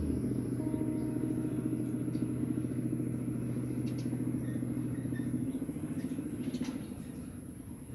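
A small engine running steadily, its low tone dropping out about five and a half seconds in and the rumble getting quieter toward the end, with a few faint clicks.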